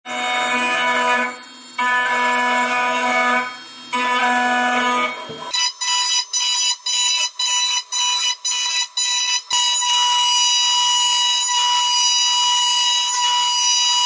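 Small CNC mill's spindle and end mill cutting a metal espresso group-head part: a loud, high multi-tone whine that shifts pitch twice. In the middle it cuts in and out about twice a second, then holds steady.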